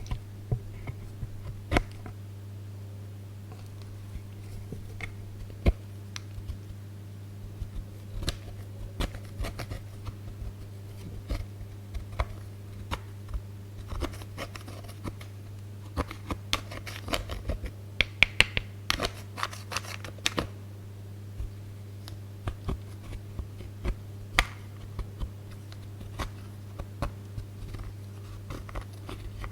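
Close-up handling of slime and a blush palette: irregular sharp clicks and crackles, coming thickest about halfway through, over a steady low electrical hum.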